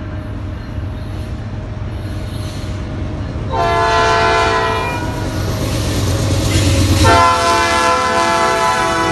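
Norfolk Southern diesel freight locomotive sounding its multi-chime air horn as it approaches and passes: one blast of about a second and a half, then a second long blast from about seven seconds in that is still sounding at the end. Under the horn, the low rumble of the diesel locomotives grows louder as the train draws near.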